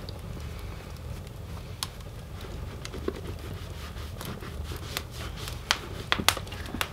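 Cloth rubbing dubbin wax into a leather boot: soft rubbing with scattered sharp clicks and crackles, several of them close together near the end, over a low steady hum.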